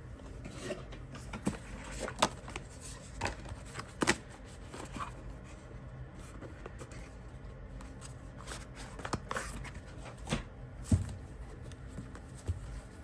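Tarot and oracle cards being handled and set down on a table: irregular light taps, slides and rustles, with a few sharper clicks.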